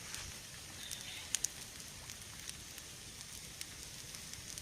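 Wood campfire burning with a steady hiss and scattered sharp crackles and pops, a few of them close together about a second and a half in.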